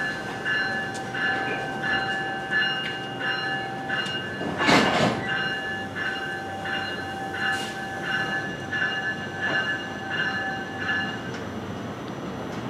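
New Jersey Transit Multilevel train's bell ringing steadily at a little over two strokes a second, stopping near the end, with a short sharp hiss of air about five seconds in.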